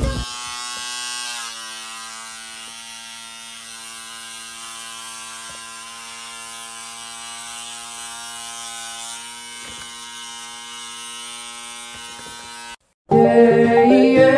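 Electric hair trimmer running with a steady buzz, which stops abruptly near the end. Loud music then starts.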